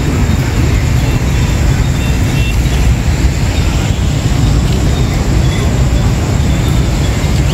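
Steady low rumble of road traffic along a wet street.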